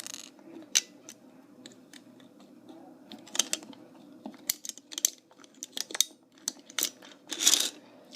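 A toy handcuff being worked with a makeshift pick from a toy gun: an irregular scatter of small clicks and rattles as it is jiggled while stuck, with a short rustle near the end.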